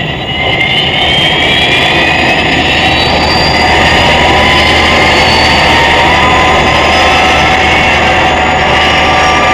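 Jet engines of a large military transport aircraft taxiing: a steady loud roar with a high whine over it that slowly shifts in pitch.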